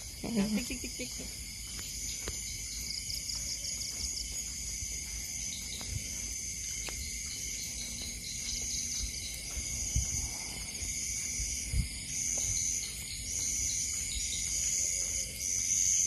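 Night chorus of crickets: several high, steady trills at once, one of which from about halfway comes in regular pulses a little faster than once a second, over a faint low rumble.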